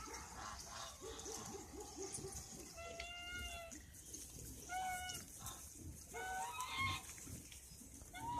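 Piglets grunting in short pulses, then squealing: three short high calls about three, five and six to seven seconds in.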